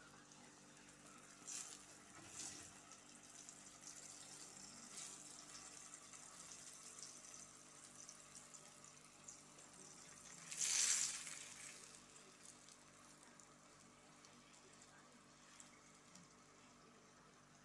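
Chebureki frying in hot oil in a frying pan: a steady, faint crackling sizzle that flares louder briefly about eleven seconds in.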